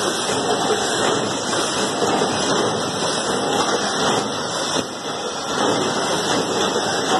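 Automatic snack packaging line running: a bag-bundling machine synchronised with two vertical packaging machines and their inclined conveyor, giving a steady machinery noise with a hiss.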